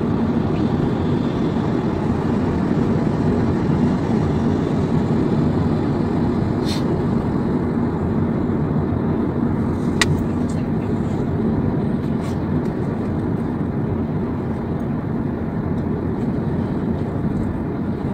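Steady low rumble of a car cruising on a highway, heard from inside the cabin: tyre and engine noise at a constant speed. A brief sharp click about ten seconds in.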